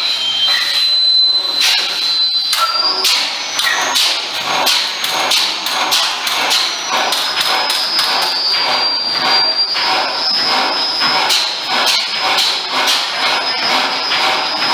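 200 hp Western stationary engine running, a regular knocking beat about twice a second with a thin, steady high whine over it.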